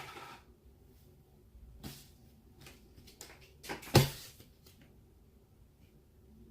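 Light handling noise of packaging being set aside, with a small knock about two seconds in and a single sharp knock about four seconds in.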